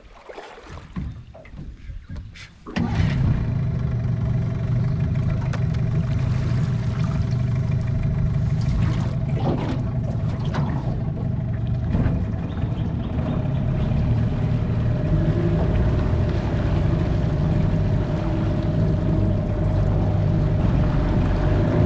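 Outboard motor on a small aluminium boat running at a steady speed, cutting in suddenly about three seconds in after a quieter stretch.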